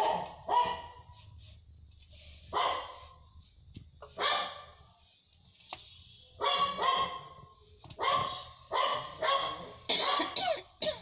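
A dog barking repeatedly in the background: short single and double barks every second or two, coming more often in the second half.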